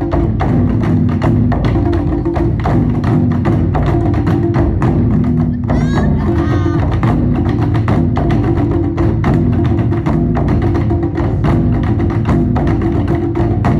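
Japanese taiko drums beaten in a fast, steady rhythm, many sharp strokes following one another without a break. A brief wavering high call cuts through about six seconds in.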